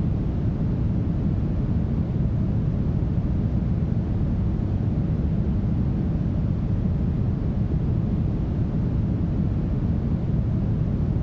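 Steady brown noise: a smooth, even hiss with most of its weight in the bass and little treble, unchanging throughout.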